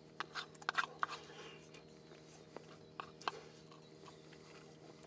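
Light clicks and taps from a small aluminium rice pot being handled: a cluster in the first second and a half and a few more around three seconds in, over a faint steady hum.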